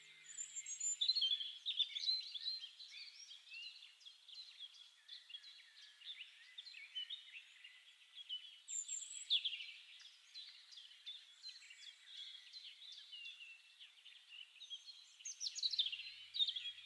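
A chorus of several songbirds singing together: a dense stream of short, high chirps and trills, a little louder about a second in and again near the end.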